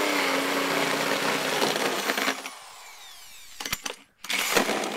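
Power drill cutting through old lath and plaster in a wall hole, recutting it at a slight upward angle so the insulation fill tube will slide in. The drill stops about two and a half seconds in and its motor winds down with a falling whine, then starts cutting again near the end.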